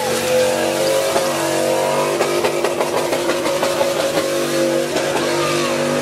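Chevrolet Silverado pickup's LS V8 held at redline at one steady pitch while spinning donuts, over the hiss of the spinning rear tyres.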